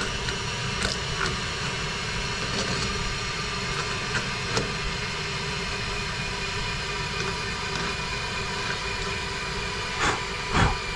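Steady workshop hiss and machine hum, with a few light clicks and one heavier knock near the end as a hand deburring tool works the stud holes of an aluminium cylinder head.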